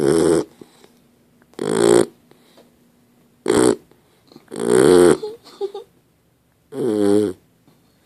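Dog snoring in its sleep: about five loud snores, roughly one every one and a half seconds, with quiet between them.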